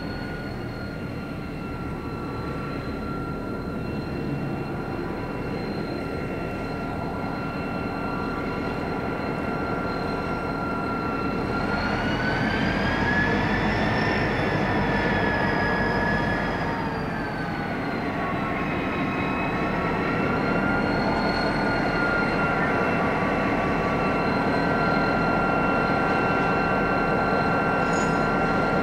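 Two diesel locomotives, BL33 leading, hauling a loaded grain train slowly up a grade toward the listener. Their engines run with a steady drone and a high whine that rises in pitch about twelve seconds in and falls back a few seconds later. The sound grows louder as the locomotives come closer.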